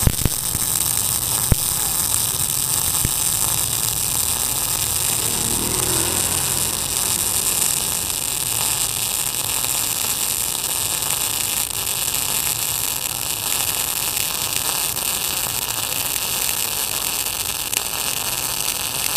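MIG welding arc from a 5 kg MIG 215 welder laying one long continuous bead on 6 mm steel plate: a steady hiss with a low hum underneath, and a few sharp clicks in the first few seconds.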